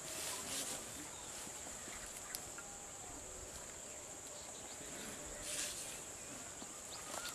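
Steady high-pitched insect chirring, with two brief louder hisses near the start and about five and a half seconds in.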